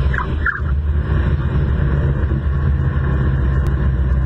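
Engine running steadily, a loud low drone, with two short rising chirps about half a second apart near the start.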